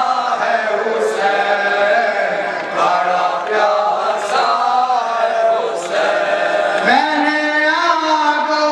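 Men's voices chanting a noha, a Shia lament for Husain, in a slow wavering melody. A long held note rises in about seven seconds in. A sharp beat falls about every second and a half.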